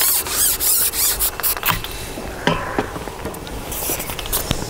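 Carbon fishing pole being pulled back and handled while a hooked fish is played: rubbing and scraping against the angler and his kit, with light knocks and a sharp click about two and a half seconds in.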